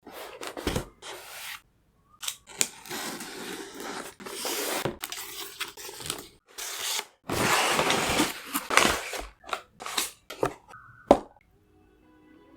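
Packaging of a Fossil Gen 6 smartwatch being opened and handled: a run of scrapes, rustles and tearing noises broken by sharp clicks. Quiet guitar music begins near the end.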